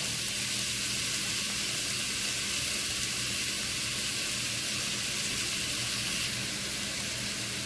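Chopped onion frying in hot oil in a pan, giving a steady, even sizzle.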